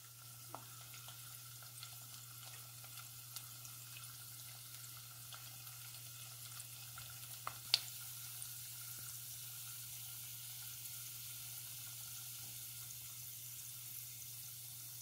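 Popcorn kernels in oil sizzling faintly in an uncovered pot on an electric stove coil at full heat, before any popping, over a steady low hum. Scattered small ticks, and one sharp click about eight seconds in.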